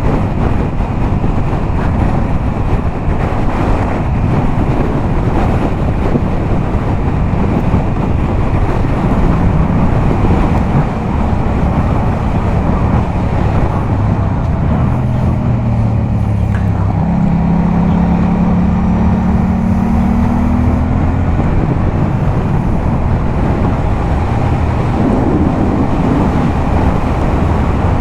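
Yamaha MT-07's 689 cc parallel-twin through a LeoVince aftermarket exhaust, running at highway speed under heavy wind noise on the microphone. About two-thirds of the way through, the engine note steps up in pitch and then climbs slowly for a few seconds.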